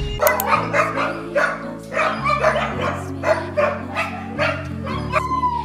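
Huskies barking and yipping in quick short bursts, with one long, slightly falling call a little after five seconds in. Background music plays underneath.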